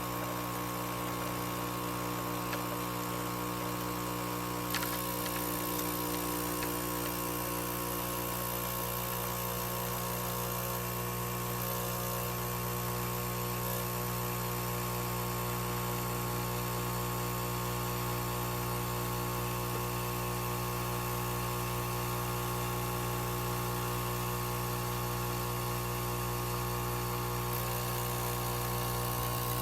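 A small electric appliance running with a steady, unchanging hum.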